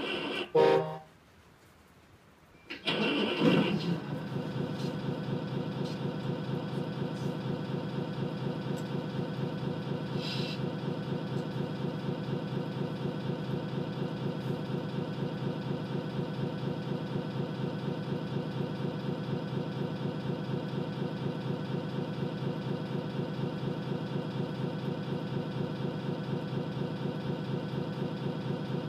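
Servonaut sound module in an RC Scania R620 model truck playing a simulated truck diesel engine: a short burst and a brief pause, then the engine start about three seconds in, settling into a steady, evenly pulsing idle.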